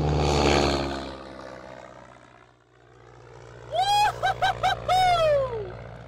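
Engine of a small homemade airplane swelling to a loud pass and fading, then droning on more faintly. About four seconds in, a high yell comes over it, wobbling in several short breaks and then sliding down in pitch.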